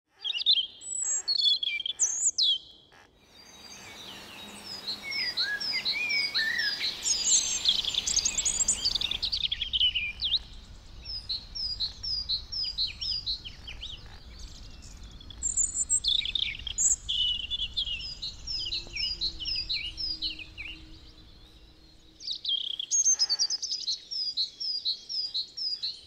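Woodland songbirds singing: overlapping songs built from quick series of short, high, repeated notes, with the background changing abruptly a few times as between separate recordings.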